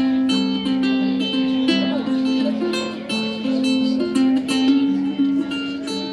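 Solo ukulele picking a melody over alternating bass notes, each note plucked cleanly and ringing briefly.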